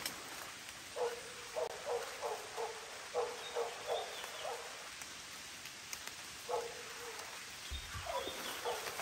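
An animal calling over and over: a run of about nine short calls, each falling in pitch, in the first half, then one longer call and a few more short ones near the end.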